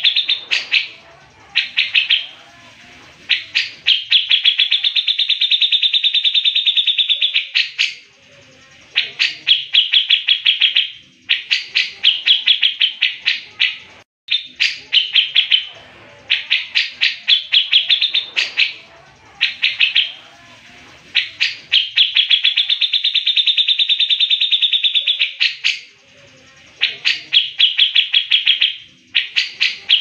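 Grey-cheeked bulbul (cucak jenggot) singing loud, rapid trills: runs of fast, evenly repeated high notes, the longest lasting a few seconds, broken by short pauses between phrases.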